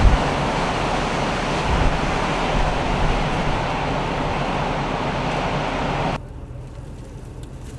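Strong blizzard wind blowing hard, with gusts buffeting the microphone in low thuds. About six seconds in it cuts off suddenly to a much quieter low rumble.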